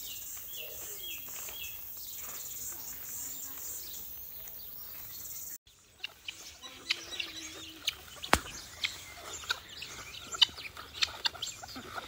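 Small birds chirping over a steady high hiss, then, after a cut about halfway, a flock of chickens clucking at close range among many short sharp clicks.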